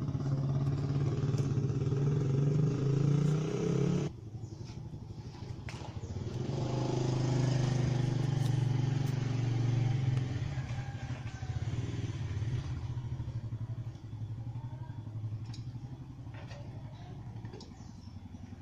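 A motorcycle engine revving: it climbs for about four seconds and cuts back suddenly, revs up again a couple of seconds later, then falls back to a lower, steady run.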